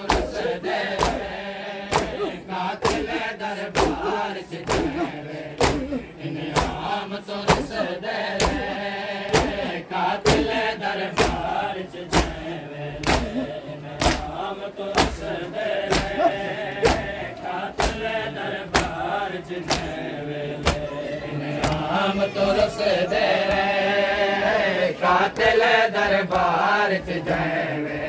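Crowd of men chanting a noha (a Shia lament) together while beating their chests with open hands in matam. The slaps keep a steady beat under the chant.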